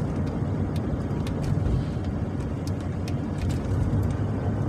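Steady low road and engine rumble heard inside a moving vehicle's cabin, with a few faint ticks.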